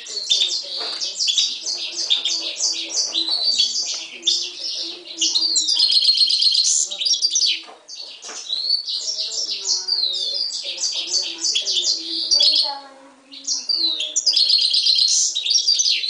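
Himalayan goldfinch × canary mule singing a long, fast song of twitters, trills and chirps, with brief breaks about halfway and near three-quarters through.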